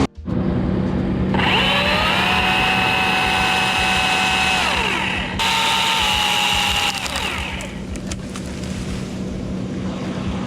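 Milwaukee battery-powered electric chainsaw whining as it spins up, running at a steady pitch for about three seconds, then winding down. A second, shorter run starts suddenly a moment later and fades out just past the middle.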